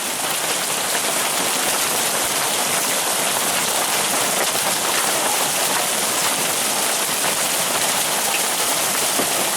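Heavy rain pouring down steadily during a hailstorm, with a few light ticks scattered through it from hailstones coming down with the rain.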